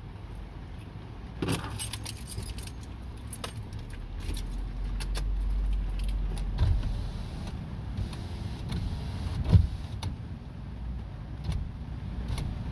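Steady low rumble inside a vehicle cab, with scattered clicks and rattles of things being handled and a sharp thump about nine and a half seconds in.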